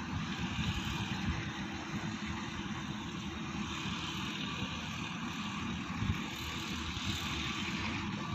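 SANY SY215C-9 excavator's Mitsubishi diesel engine running steadily under working load as the machine dumps a bucket into a truck and swings back, with an uneven low rumble throughout.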